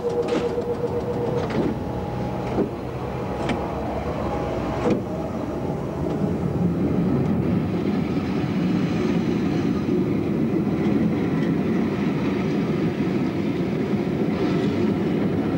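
Carriage doors of a slam-door suburban electric train banging shut, several sharp slams in the first five seconds, while a steady hum fades out early on. The train then pulls away, its motors and wheels building to a steady rumble.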